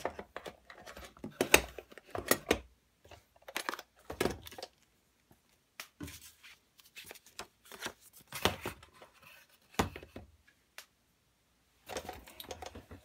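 Small items being set down and shuffled in a cardboard box: metal tins and a plastic tube click and knock against each other and the cardboard at irregular moments, with some rustling of packaging.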